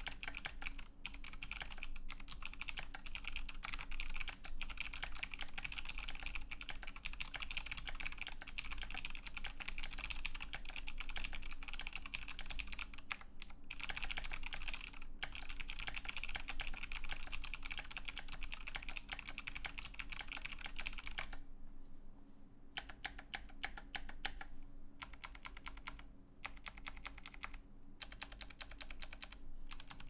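Fast, continuous typing on a Razer BlackWidow Tournament Edition mechanical keyboard fitted with Kailh Box Navy clicky switches, a dense stream of sharp key clicks. About two-thirds of the way through it stops for about a second, then goes on in shorter runs with brief pauses.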